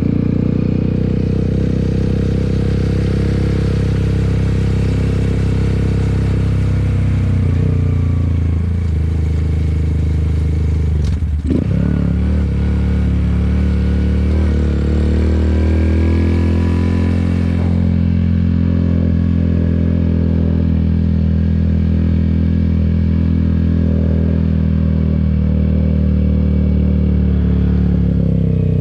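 Honda Grom's 125cc single-cylinder engine running at fairly steady revs, with a rushing hiss over it that stops suddenly about eighteen seconds in. A single sharp knock about eleven seconds in.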